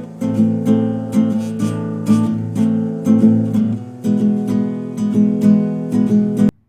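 Background music of strummed acoustic guitar chords at a steady rhythm, cutting off abruptly near the end.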